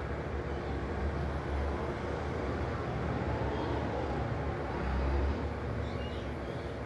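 Steady low rumble and hiss of background noise, swelling slightly about five seconds in.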